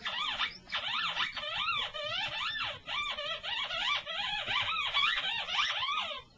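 Whippet making a high, warbling howl-whine, its pitch swooping rapidly up and down, broken by a few short pauses.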